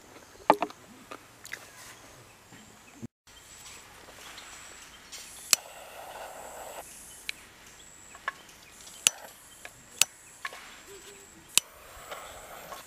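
Scattered sharp clicks and knocks, about half a dozen, over a soft background hiss, with short stretches of rustling around the middle and near the end.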